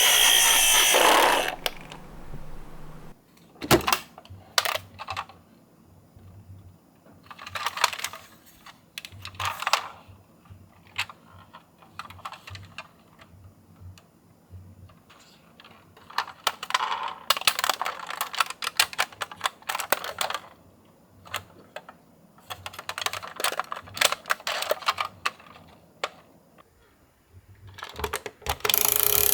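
Toy ambulance and bus minicars rolling down a slope, making bursts of small clicking and rattling with quieter gaps between runs. It is loudest in the first second or so and again near the end.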